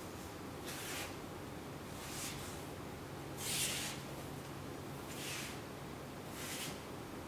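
Wooden practice sword swung in repeated cuts through the air, a soft swish about every second and a half, five in all, the loudest about halfway through, with cloth of the gi rustling.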